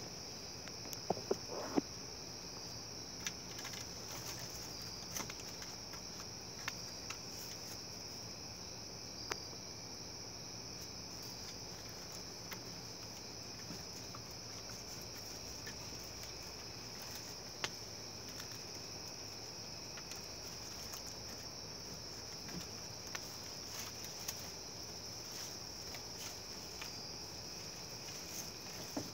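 Faint, steady chorus of night crickets, with scattered light clicks and scratches and a short cluster of them about a second in.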